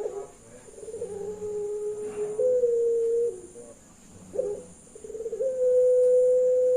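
Puter pelung dove cooing: two long, low, steady coos, each starting with a short note, then stepping up in pitch and holding, the second still going at the end.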